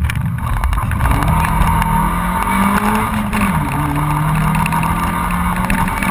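Honda Civic 1.3's four-cylinder engine heard from inside the cabin, pulling hard on a rally stage with road and tyre noise underneath. Its note holds, drops once about three and a half seconds in, then runs steady and climbs again near the end.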